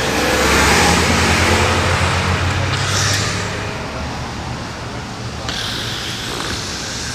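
Street traffic: a motor vehicle's engine running low and close by, loudest about a second in and fading over the next few seconds, over steady city noise.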